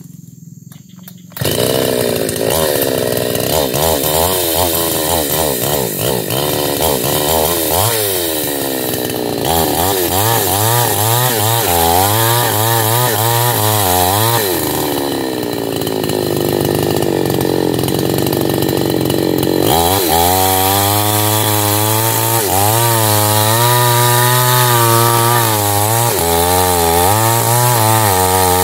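Mini chainsaw throttling up sharply about a second in, then running hard as it cuts into the fibrous base of an oil palm trunk. Its engine pitch rises and falls again and again as the load changes, and it drops lower for a few seconds in the middle before winding back up.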